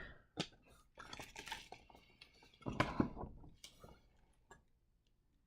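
Hockey trading cards being handled: a scatter of light clicks, taps and slides as cards are flipped through and set down, loudest about three seconds in and dying away near the end.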